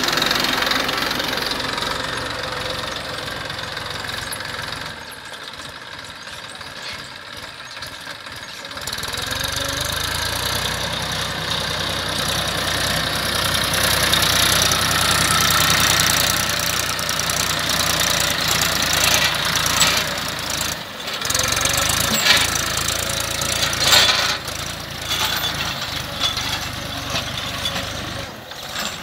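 Massey Ferguson 1035 DI tractor's three-cylinder diesel engine running steadily under load as it drags a cultivator through ploughed soil. It drops quieter for a few seconds and then comes back louder, with a few sharp knocks near the end.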